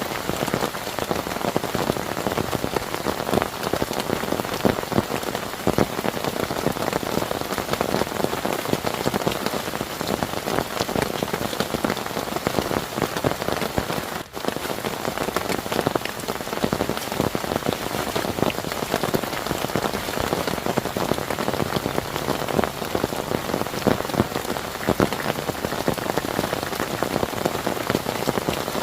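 Heavy rain falling steadily, a dense patter of drops hitting surfaces, cut by a momentary gap about halfway through.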